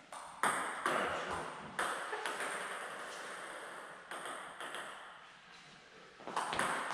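Table tennis ball clicking off the table and the players' bats during a serve and rally: sharp, irregularly spaced clicks, each ringing on briefly in the hall's echo.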